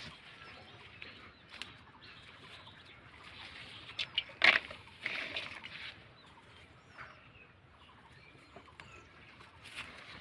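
Rustling of bean vines and leaves as pods are picked by hand. There are a few light clicks and one sharp, louder click about four and a half seconds in.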